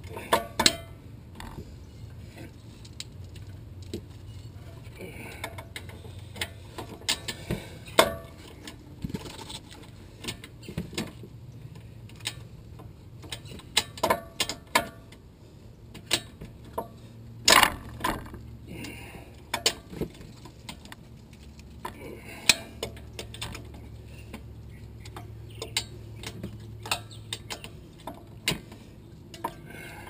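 Socket ratchet clicking in irregular runs, with metal clinks and knocks, as the rear wheel hub's mounting bolts are spun out with an 18 mm socket. A low steady hum underneath.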